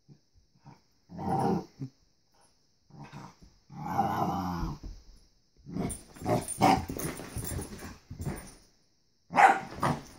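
A young dog barking and growling in several short outbursts as it plays at a balloon, the loudest near the end, with scuffling between.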